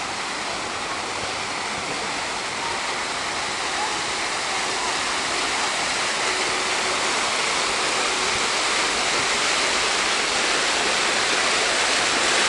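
Fountain jets spraying and splashing down over a glass dome into the basin: a steady rush of falling water that grows gradually louder as it comes closer.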